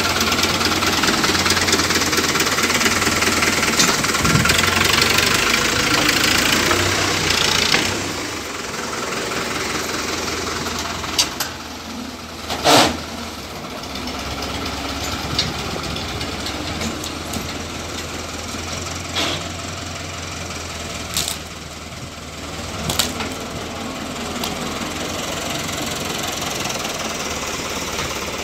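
Fiat 70-56 tractor's diesel engine running under load while its front loader scoops and lifts manure. It is louder for about the first eight seconds, then steadier and a little quieter. A few sharp knocks come through, the loudest about halfway through.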